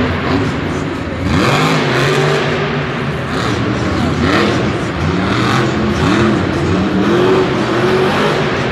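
Monster truck engines revving hard again and again, the pitch sweeping up and falling back in repeated arcs.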